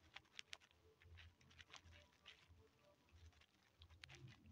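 Near silence, with faint scattered soft ticks of a crochet hook working yarn into chain stitches.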